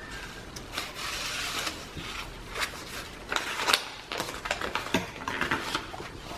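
Paper pages of a thick handmade journal being turned and handled: rustling and sliding paper with sharp flicks and taps, the loudest a little past halfway.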